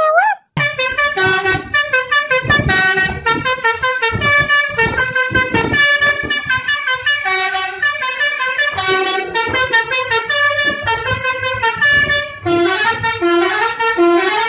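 Instrumental background music with a quick-moving, horn-like melody over a regular beat. It starts just after a brief cut to silence.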